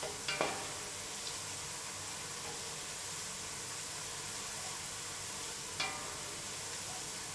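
Sliced onions frying in hot oil in a stainless-steel pot, giving a steady sizzle as they cook toward golden brown. A wooden spoon stirs them, knocking against the pot about half a second in and again near six seconds.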